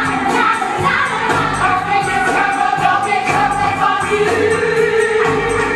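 Music with a choir singing long held notes over instrumental backing.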